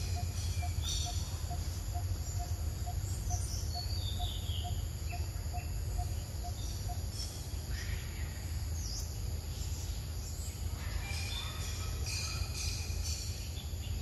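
Outdoor forest ambience: scattered bird chirps and insect buzzing over a steady low rumble. A steady series of short, evenly spaced notes runs through the first half and stops about seven seconds in.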